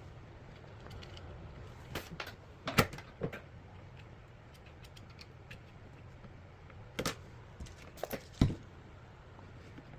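Small tools and parts being handled on a workbench during circuit-board soldering work: a few sharp clicks and knocks in two clusters, one about two to three seconds in and another about seven to eight and a half seconds in.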